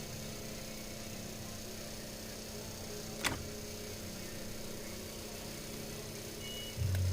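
Steady electrical hum, with one sharp click about three seconds in and a louder low rumble or knock starting near the end.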